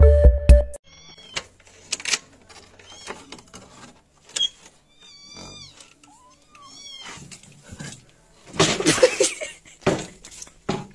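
A cat meowing several times in short, high-pitched cries, with a loud rustling scrape about three-quarters of the way through.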